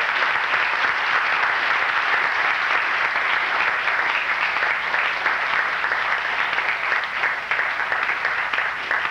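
An audience applauding, a dense, steady clapping that eases off slightly near the end.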